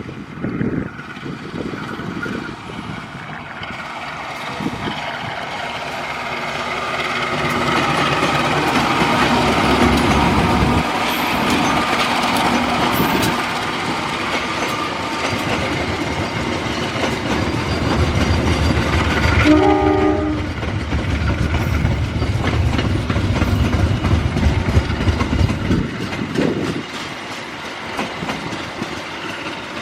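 A train running through the station, its wheels clattering over the rails in a loud rumble that builds over the first several seconds. About two-thirds of the way through the locomotive sounds one short horn blast.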